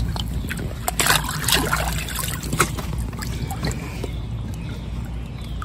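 Pond water sloshing and trickling as a biological pond filter is pushed down into it, with a run of clicks and knocks from the handling in the first few seconds, over a steady low hum.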